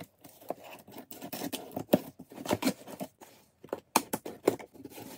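Scissors cutting along the taped seam of a cardboard shipping box: an irregular run of snips and scrapes, sharpest about two seconds in and again around four seconds in.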